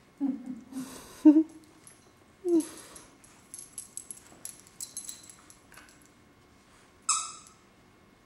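Two dachshunds play-fighting. A few short, low growls come in the first three seconds, the loudest just after one second in, with light clicks and a jingle of collar tags between them. Near the end there is one sharp, high yelp that falls in pitch.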